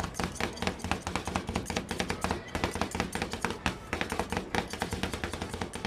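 Metal spatulas chopping and tapping rapidly on a frozen ice-cream pan, several quick sharp strikes a second, as fruit is chopped into the ice cream base. A steady low hum runs underneath.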